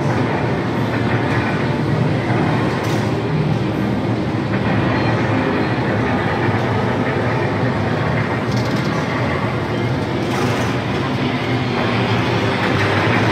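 Air-raid sound effects played over loudspeakers with a projected animation: a steady, dense rumble with a few brief cracks.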